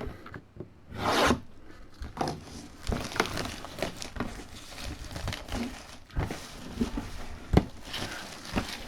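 A sealed product box being opened by hand: tearing, rustling and scraping of packaging, with a burst of tearing about a second in and several short sharp knocks, the loudest near the end.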